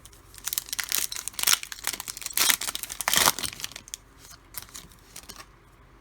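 A trading card pack's foil wrapper being torn open and crinkled, in a dense burst of crackling for about three seconds, then lighter rustling.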